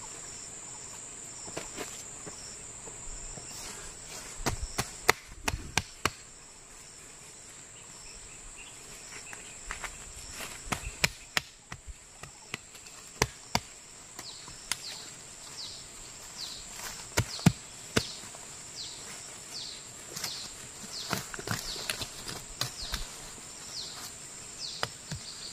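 Steady high-pitched insect drone, overlaid with sharp snaps and rustling as leafy plants are picked and handled by hand. A run of short falling chirps comes near the end.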